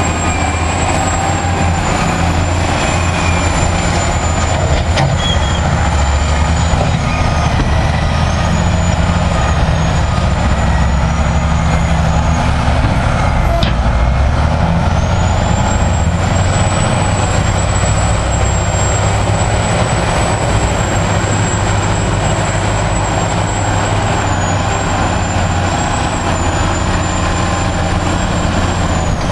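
Heavy diesel engines of a Caterpillar 825H soil compactor and 627G scrapers running steadily under load as the compactor works the fill. A thin high whine rides over the engine drone, drops away for a few seconds about halfway through, then returns.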